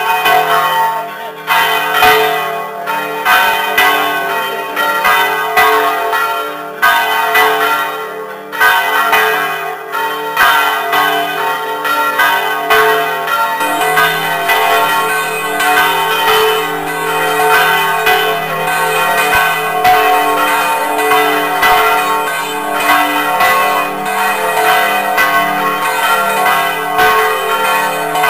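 Church tower bells ringing a continuous peal, strike after strike, their ringing tones overlapping without a pause.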